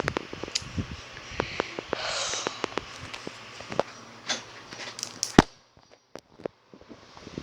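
Mock eating sounds: a rapid, irregular run of mouth clicks, smacks and crunchy knocks, with a breathy sniff about two seconds in and one sharp, loud knock a little past five seconds.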